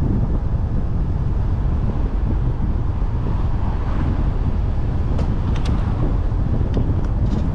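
Steady low rumble of wind and road noise from a car on the move, with a few faint clicks in the second half.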